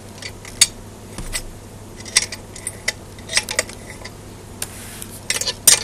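A ring spanner clinking on bolt heads as bolts are turned into an elevation rotator's metal housing: a scatter of sharp metallic clicks, with a quick cluster near the end.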